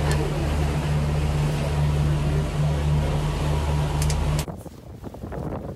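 A catamaran's engine running with a steady low drone as the boat motors along, over a wash of water and wind. About four and a half seconds in, it cuts off suddenly to quieter, gusty wind buffeting the microphone.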